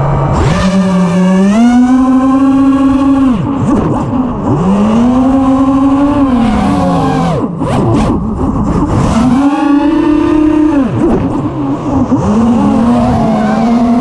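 Eachine Wizard FPV racing quadcopter's brushless motors and propellers whining, heard close up from its onboard GoPro. The motors spin up from the ground in the first second, then the pitch climbs and falls with the throttle, with several sharp dips where the throttle is chopped.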